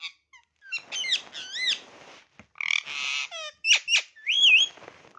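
Ringneck parrot chattering and whistling. A quick run of short chirps is followed by warbling whistles that swoop up and down, a harsh squawk about three seconds in, and a wavering whistle near the end.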